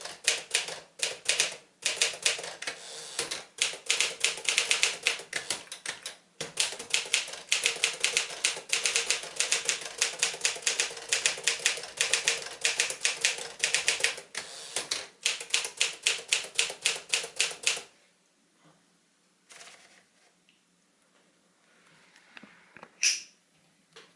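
Tower President portable typewriter, a Smith-Corona Silent-Super, being typed on in rapid strings of key strikes with short pauses, stopping about three-quarters of the way through. A few faint handling sounds and one sharp sound follow near the end.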